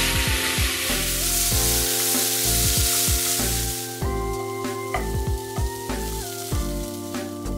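Sizzling of food in hot oil, dying away about four seconds in, with background music throughout.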